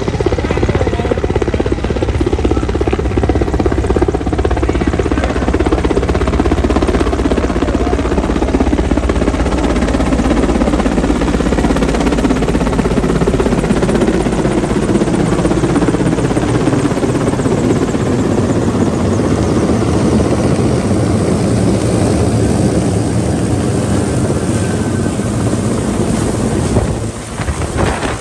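Mi-8/Mi-17-type military transport helicopter flying low overhead: loud turbine and rotor noise, its pitch sliding slowly lower as it passes. It drops off sharply near the end.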